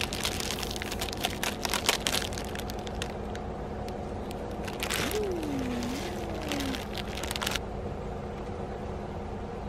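A dry instant-ramen block being broken up by hand and dropped into a pot, its plastic packet crinkling, makes a dense run of crackles and crunches that stops about two seconds before the end.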